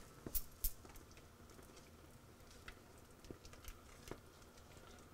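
Faint clicks and clinks of a spoon stirring soup in a stainless steel saucepan, with two sharper clicks in the first second.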